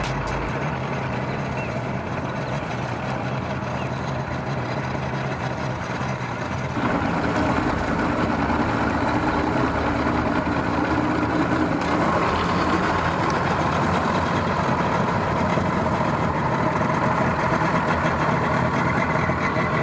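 Engines idling steadily, growing louder about seven seconds in.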